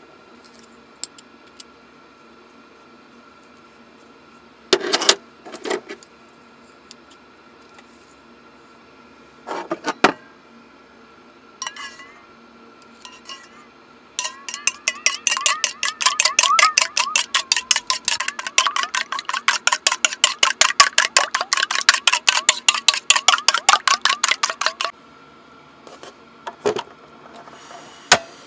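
A cooking utensil worked in rapid, even strokes against a dish, about six a second for some ten seconds, after a few scattered clinks of dishes.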